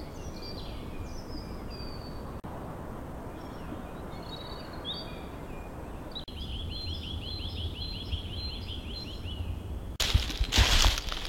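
Woodland songbirds chirping over a steady background hiss, then one bird gives a rapid trill of repeated notes for about three seconds. About ten seconds in, loud crinkling and rustling starts abruptly.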